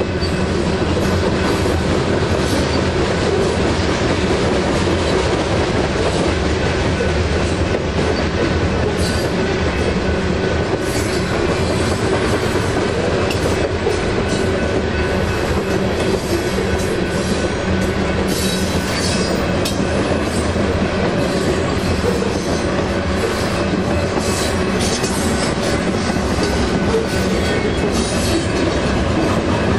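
Freight train of grain hopper cars rolling past: steady wheel-on-rail noise with clickety-clack and some wheel squeal.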